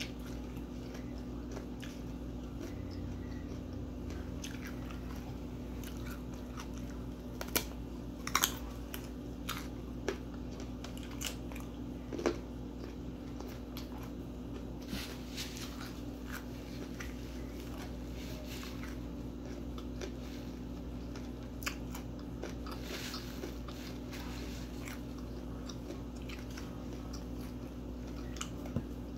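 Close-miked eating: bites and chewing with scattered crunchy crackles, the loudest about eight and twelve seconds in.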